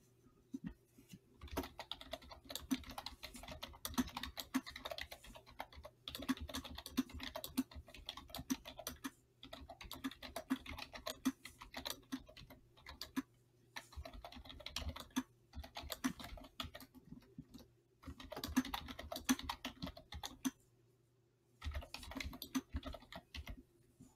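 Typing on a computer keyboard: runs of quick keystrokes, each a second or a few long, with short pauses between them, over a faint steady low hum.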